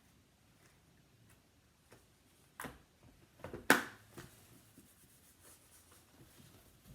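Faint scratching and tapping of a pencil on paper, with two sharp clicks or knocks about two and a half and three and a half seconds in, the second one louder.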